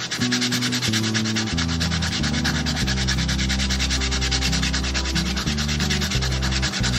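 Hand sanding: a folded sheet of sandpaper rubbed in rapid, even back-and-forth strokes over a knife's padauk wood handle scales.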